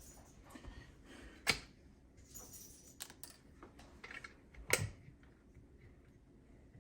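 A few faint, sharp clicks and taps from caulking tools being handled at the countertop, the two loudest about a second and a half in and near five seconds in.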